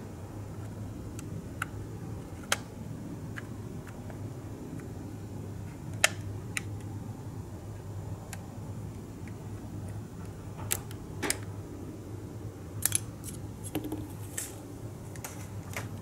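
Small clicks and taps of scale model car parts being handled and pressed together. They come at irregular moments, more often in the second half, over a steady low hum.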